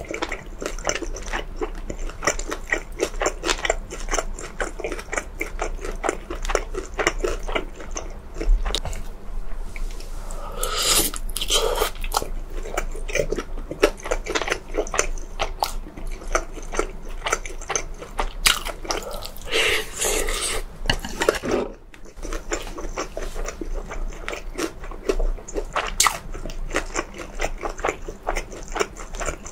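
Close-miked chewing of food, a steady run of crunchy bites and mouth sounds.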